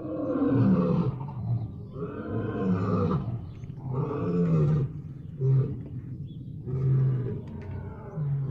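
Big-cat roars made as a sound effect for a scimitar cat: a series of about six roaring calls, each rising then falling in pitch, the longer ones about a second long and the later ones shorter.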